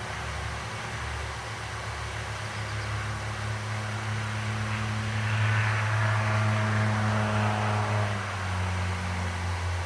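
A steady low motor hum over a rushing air noise; the hum swells to its loudest in the middle and drops in pitch about eight seconds in.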